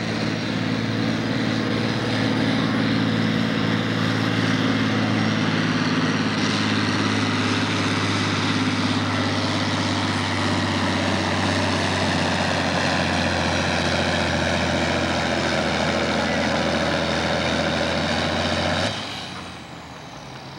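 Farm-stock diesel pulling tractor running loud and steady at high revs, its pitch slowly climbing over the later seconds; the sound drops off abruptly near the end.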